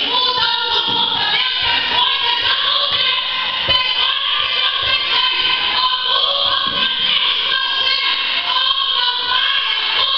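A woman singing a worship song into a handheld microphone, her voice amplified through the hall's sound system.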